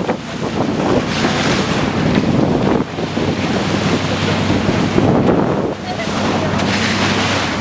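Bow wave rushing and splashing as a motorboat's hull cuts through the sea, over a steady low engine hum, with wind buffeting the microphone.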